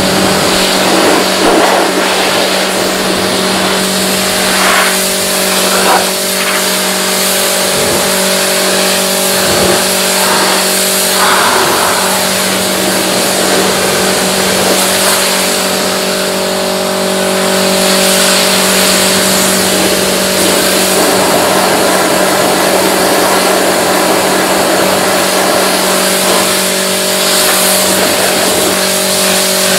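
A cleaning machine's motor running steadily with a constant hum under a loud, even hiss, with a few brief changes in the hiss in the first dozen seconds.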